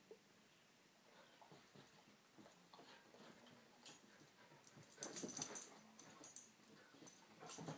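Two dogs play-fighting on a rug: faint scuffling and dog noises, building to a louder flurry about five seconds in and again near the end.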